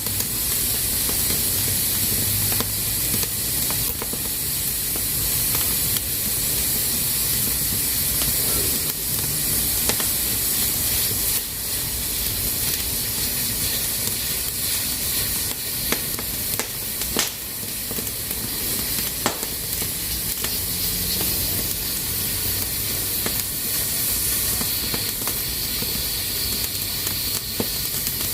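Pressure cooker hissing steadily as steam escapes through its valve, with a few sharp clicks now and then.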